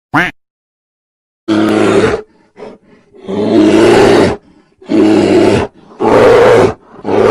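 A brief flamingo call at the very start, then brown bears growling: five loud, rough bouts, most about a second long, with short gaps between them.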